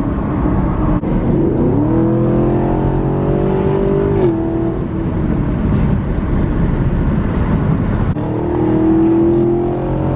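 Chevrolet Camaro ZL1's V8 heard from inside the cabin, accelerating under load. Its pitch climbs for a couple of seconds, drops sharply at a gearshift about four seconds in, then climbs again near the end.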